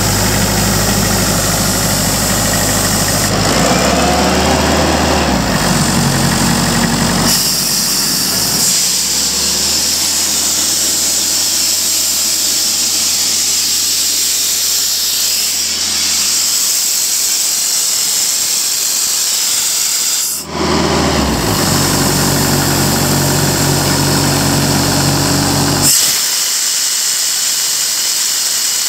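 Kaeser portable air compressor's Kubota diesel engine running, with compressed air hissing loudly from the service valve at the rear from about seven seconds in. The engine note shifts several times as the load on it changes.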